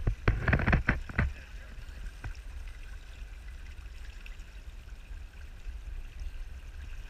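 Outdoor sound picked up by a GoPro on a pole held just above calm open water: a few sharp knocks in the first second or so, then a steady low rumble with faint water noise.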